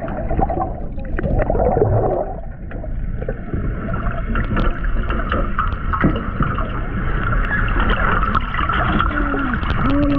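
Underwater sound heard through a submerged action camera's housing: a low rumble with bubbling and gurgling, scattered sharp clicks and knocks, and a low wavering tone that starts near the end.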